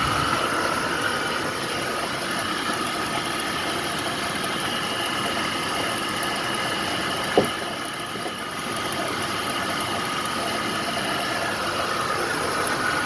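2004 Dodge Ram 1500's 5.7-litre Hemi V8 idling under the open hood, with a steady high-pitched tone over the engine noise: the noise the owner traces to a failing alternator. A single sharp click about seven seconds in.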